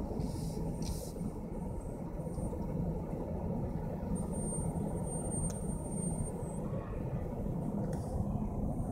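Steady low rumble of a vehicle, engine and road noise, running evenly without a break.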